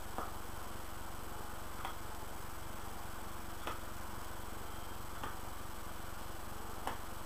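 Soft clicks at a slightly uneven rhythm, about one every second and a half to two seconds, from lips smacking on a pipe stem while puffing the pipe. A steady low electrical hum runs underneath.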